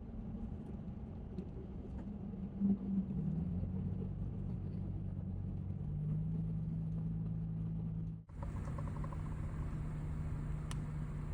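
A car driving: steady low engine hum and road rumble. It drops out for a moment about eight seconds in, then carries on.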